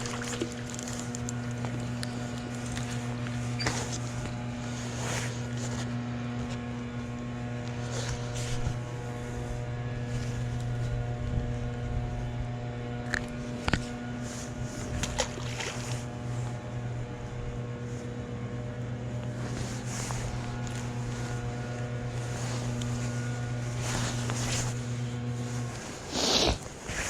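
A boat motor running with a steady low hum, with scattered clicks and knocks over it; the hum cuts off suddenly near the end, followed by a short loud rustle.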